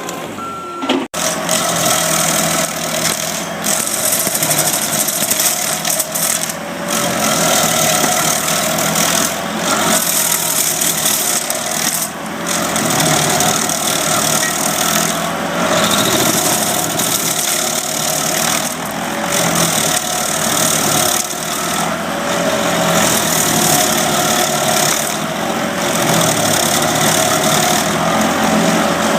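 Small gasoline engine of tree-work power equipment running at high speed, with short dips in level every few seconds.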